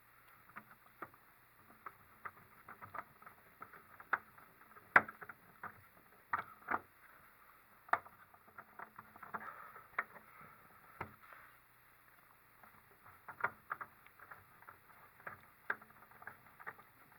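Small screws being fitted into a 3D printer's hood frame: irregular clicks and taps from the screwdriver, screws and frame parts being handled, with one sharper knock about five seconds in.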